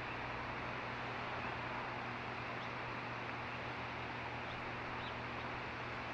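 A passing freight train makes a steady, even rumble with a low hum. A few faint, short, high chirps from the young osprey sound over it, about two and a half and three and a half seconds in.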